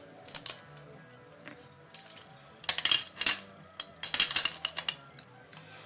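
Small metal engine parts clinking and tapping together as the backing plate is fitted behind the flywheel of a Stihl BG55 blower engine, in three short clusters of clinks.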